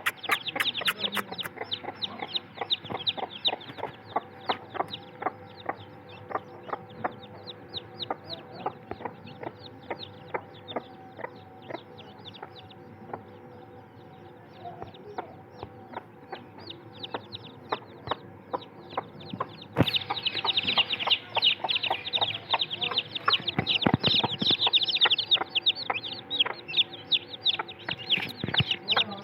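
A flock of chickens clucking and chirping, with a dense stream of short, high chirps throughout that grows louder about two-thirds of the way in. A faint steady hum runs underneath.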